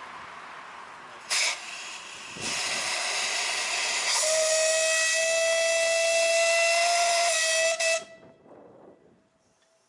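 Miniature steam locomotive's whistle blown: a short blast, then a loud rush of steam that settles into a steady whistle tone for about four seconds before cutting off sharply.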